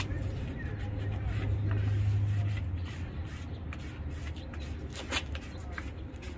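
Squeegee scraping in short strokes as vinyl decal lettering is pressed onto the aluminum bed rail of a tow truck, with a sharper click about five seconds in. Under it, a low steady vehicle engine hum that drops off about two and a half seconds in.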